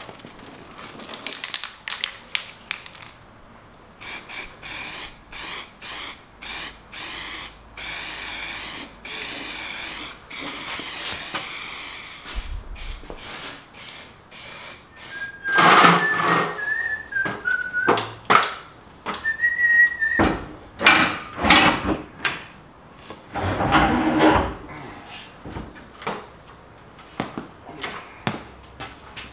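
Metal workshop sounds: a quick run of repeated strokes, then scattered loud knocks and clatter of tools on metal, with a person whistling a few short notes about halfway through.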